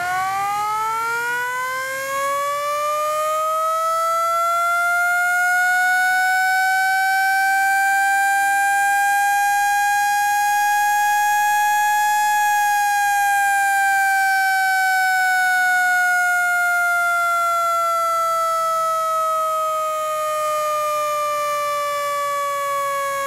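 A fire truck's small bumper-mounted mechanical siren winding up to a loud wail that peaks about halfway through, then slowly winding down as its rotor coasts.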